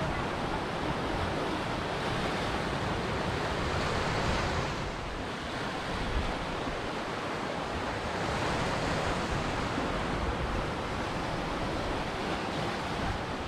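Ocean surf washing on a shore: a continuous rush of waves that eases off about five seconds in and builds again a few seconds later.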